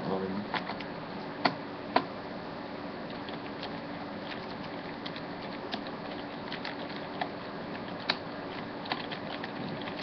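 Small screwdriver backing a screw out of a ThinkPad T42 laptop's plastic bottom case: scattered light clicks and ticks, two sharper clicks about a second and a half and two seconds in, over steady microphone hiss.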